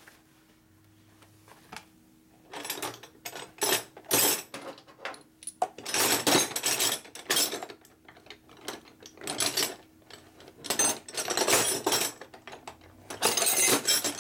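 Metal hand tools clinking and clattering in bursts as a toolbox drawer is rummaged through for a socket extension. It starts a couple of seconds in and comes in several clusters.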